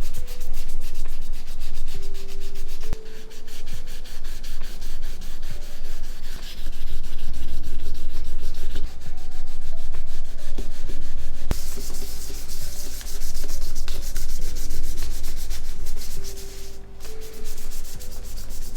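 Sandpaper rubbed by hand over a Nokia 8850 phone body part in quick back-and-forth strokes, in runs with brief pauses, levelling the surface for repainting.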